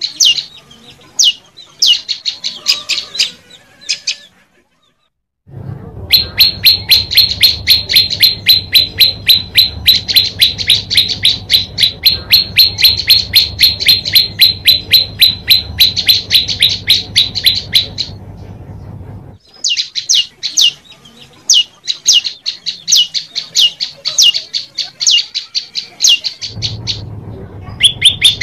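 Prenjak lumut singing in fast runs of sharp, high repeated notes, about four a second, broken by short pauses. The longest and loudest run has a low hum under it.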